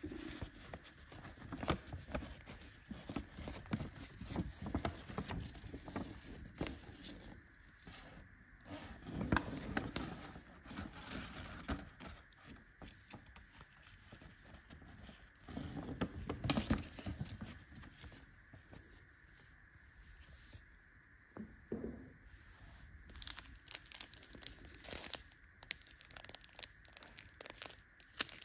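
Paper instruction leaflet rustling and crinkling as it is unfolded and handled by gloved hands, in irregular bursts with small clicks; near the end a clear plastic sleeve crinkles as it is picked up.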